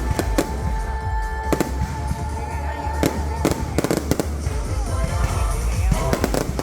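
Fireworks display going off: repeated sharp bangs at irregular intervals, with music playing alongside.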